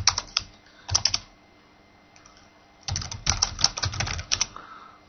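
Computer keyboard typing in bursts: a few keystrokes at the start and three more about a second in, then after a short pause a quick run of keystrokes from about three seconds in.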